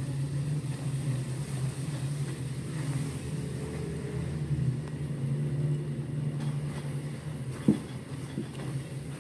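A steady low hum under a spatula stirring semolina into hot ghee and milk in a wok, with one sharp knock of the spatula against the pan about three quarters of the way through.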